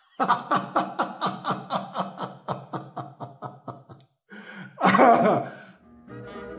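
A man laughing heartily, a long run of 'ha-ha' pulses about four or five a second that gradually fade, then one loud breathy outburst about five seconds in. Brass swing music starts just before the end.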